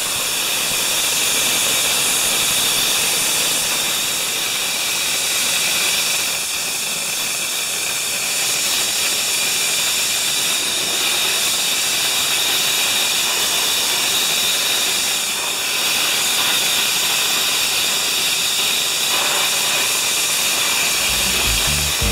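Dry ice blasting nozzle firing a continuous loud hiss of compressed air and dry ice pellets at welding-station tooling, blasting off weld spatter. Music comes in near the end.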